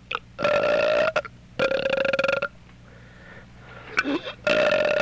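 A teenage boy burping on purpose: three loud, evenly pitched belches of just under a second each, the third starting near the end.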